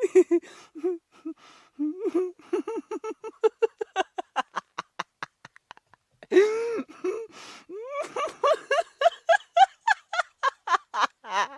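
Human laughter: rapid runs of short pitched 'ha' pulses, softer in the first half, then after a brief lull near the middle a louder, higher-pitched burst of laughing.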